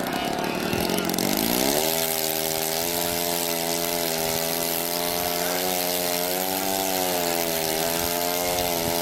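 Small engine of a radio-controlled model aircraft revving up: its pitch climbs for about a second, then holds near steady with a slight waver in speed.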